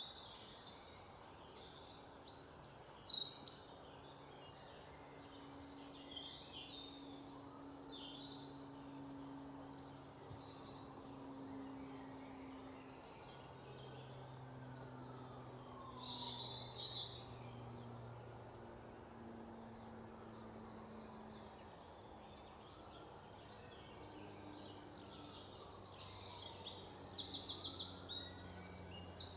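Small songbirds chirping and calling in a forest, with quick trilled bursts about three seconds in and again near the end, over a steady low background hum.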